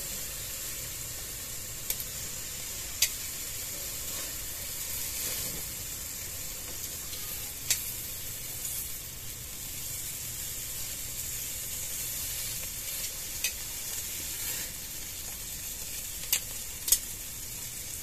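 Marinated chicken legs sizzling over a charcoal grill, a steady hiss broken by about six sharp clicks or pops spread through it.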